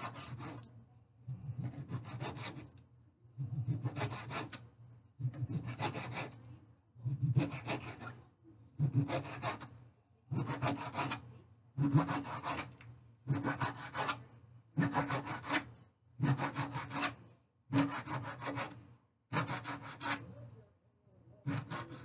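Chef's knife sawing back and forth through a raw cod fillet onto a plastic cutting board, cutting it into cubes. Each stroke is a rasping rub about a second long, repeating steadily roughly every one and a half seconds.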